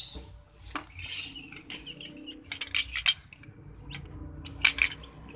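Screw-type scissor car jack being cranked up by hand: irregular metal clicks and clinks from the crank and threaded screw, the sharpest about a second in, around three seconds in and near the end.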